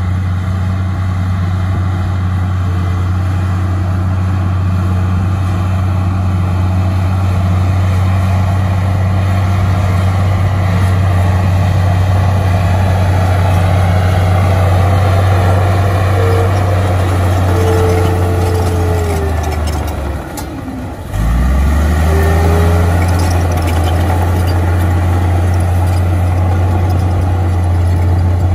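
Crawler bulldozer's diesel engine working steadily under load as it pushes dirt. About twenty seconds in, the engine note sinks and drops away for a moment, with a falling whine, then picks back up.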